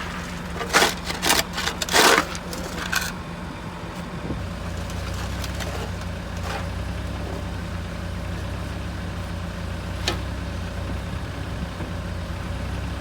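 Several loud knocks in the first two seconds, over a steady low drone of an engine running, which deepens and strengthens about four seconds in and then holds steady.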